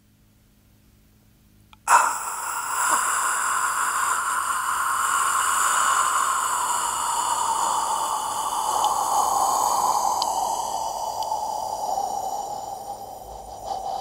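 One long, drawn-out human breath, amplified. It starts suddenly about two seconds in, then slowly falls in pitch and fades a little.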